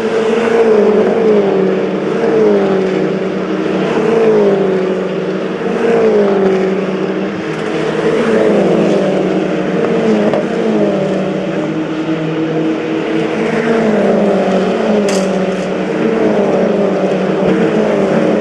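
Engines of several MINI Challenge race cars running on the circuit. Their note swells and bends in pitch in repeated waves, about every two seconds.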